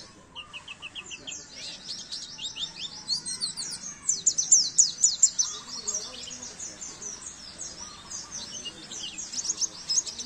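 White-eye (pleci) singing a rapid, continuous twittering song of quick high notes that sweep downward, with a brief run of evenly spaced lower notes near the start.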